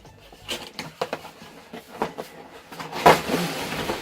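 Cardboard box packaging handled with scattered knocks and rustles as the toy blaster is pulled out, then a loud scraping rustle of cardboard about three seconds in.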